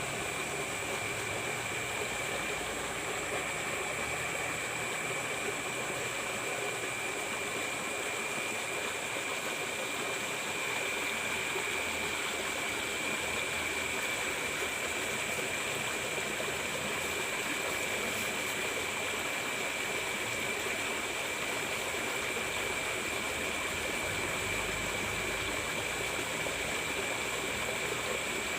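Steady rushing of water flowing in a drainage ditch after rain, with a steady high-pitched tone running over it.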